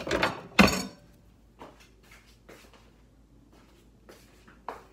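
Kitchenware clattering around a mixing bowl: two sharp knocks within the first second, then only faint, scattered taps and clicks.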